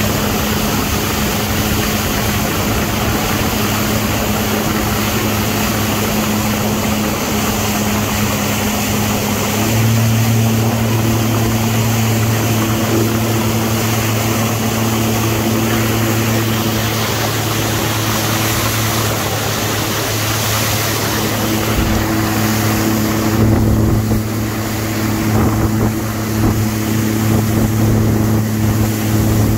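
Jet ski engine running steadily under way, with a constant rush of wind and water. The engine note steps up and gets a little louder about ten seconds in, as the throttle is opened.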